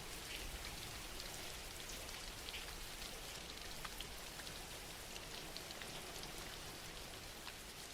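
Steady soft rain with scattered droplet ticks, played as a sleep ambience track.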